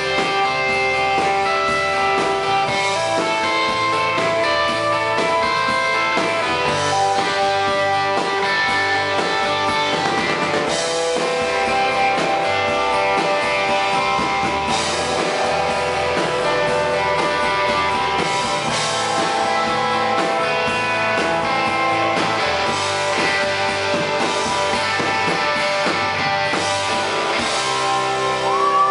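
Live rock band playing an instrumental passage, led by guitars over a drum kit.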